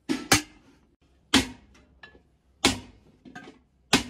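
Hammer striking a large aluminium cooking pot on a stand. Five sharp blows, each ringing briefly: two in quick succession at the start, then one about every 1.3 seconds.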